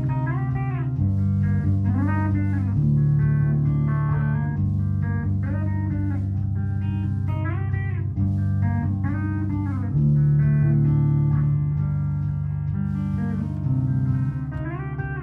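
Electric guitar played live: a looped low line holding notes that change every second or two, under a lead melody with notes bent up and down.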